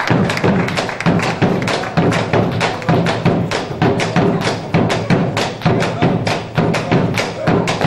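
Argentine folk music with a steady, strongly accented percussive beat of regular sharp strikes, a few per second.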